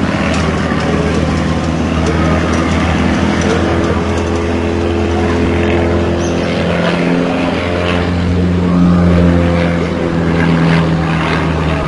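Single-engine propeller aerobatic plane's engine droning overhead while it flies stunts, its pitch shifting slightly and swelling louder near the end.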